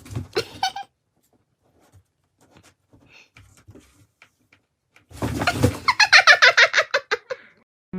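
A cat vocalising: a few short sounds at the start, then a rapid run of pitched pulses lasting about two seconds, its pitch falling.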